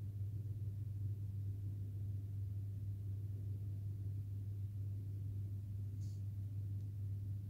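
Steady low hum with a faint rumble beneath it: the room tone of the enclosed high-rise viewing floor behind the glass, with one faint tick about six seconds in.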